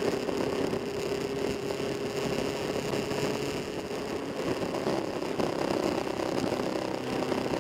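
Motorcycle engine running steadily at a fairly even pitch.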